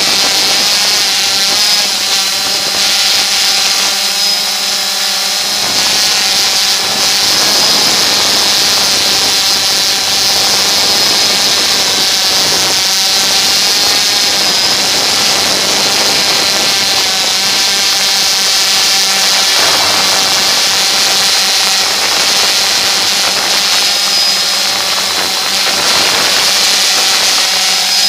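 DJI Phantom 2 quadcopter's four electric motors and propellers whining steadily, heard up close from the camera mounted on the drone as it hovers and descends to the ground.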